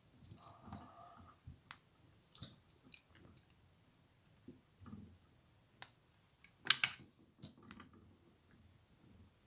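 Scattered light clicks and knocks from handling a rotary fly-tying vise and a small UV torch, the loudest a sharp double click about seven seconds in.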